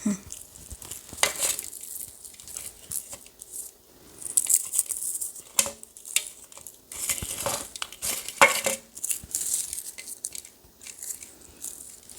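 Dried catnip being stripped off its stems and crumbled by hand, a dry, irregular crackling and rustling with sharp little snaps.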